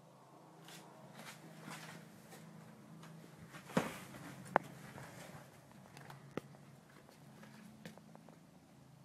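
Faint footsteps and handling noise of someone walking through a static caravan, over a low steady hum. There is a thump just before four seconds in, a sharp click about half a second later and another click a couple of seconds after that.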